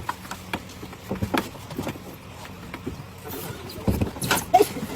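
Irregular knocks and clatter over a steady background noise, growing denser and louder about four seconds in.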